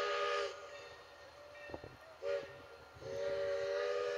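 Steam locomotive's whistle blowing a chord of several close tones over a hiss of steam. A long blast ends about half a second in, a short toot comes about two seconds in, and another long blast starts about three seconds in.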